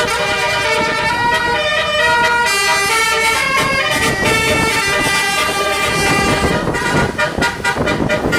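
Multi-tone telolet horn on a Basuri bus playing a tune of held notes that step from pitch to pitch, with a low rumble of road noise building underneath about halfway through.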